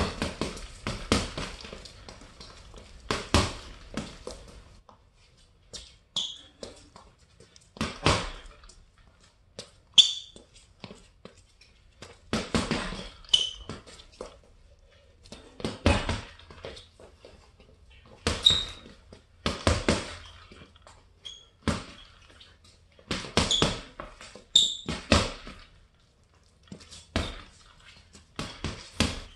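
Boxing gloves punching a hanging heavy bag in combinations: a quick run of thuds about every two seconds, with short pauses between.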